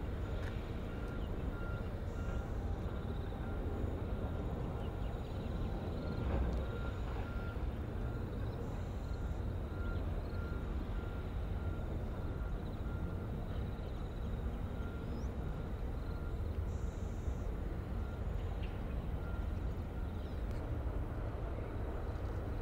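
Jet engines of a Qantas Airbus A380, Rolls-Royce Trent 900s, running at taxi thrust: a steady low rumble with a faint steady high whine.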